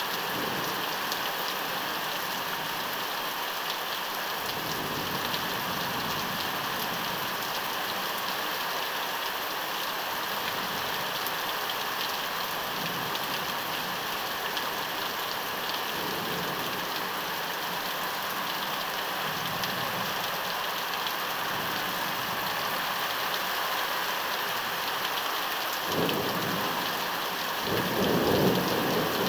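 Steady heavy rain falling, with rolls of thunder rumbling low several times; the loudest rumble comes near the end.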